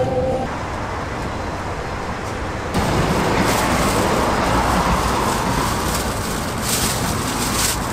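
Steady street traffic noise, with a plastic bag crinkling for about a second near the end.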